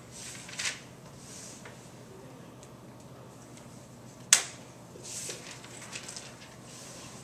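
A few faint scuffs, then a sharp click about four seconds in, followed by short scratchy strokes of a dry-erase marker writing on a whiteboard.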